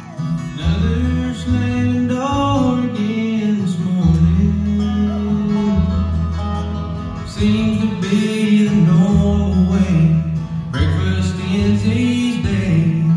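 Bluegrass band playing live: resonator guitar, mandolin, acoustic guitar, upright bass and banjo together, with sliding melody notes over a steady bass line.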